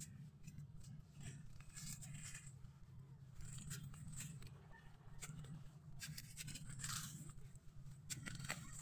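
Faint, irregular crunching and scraping of a bare hand digging into wet mangrove mud for mud clams, over a steady low hum.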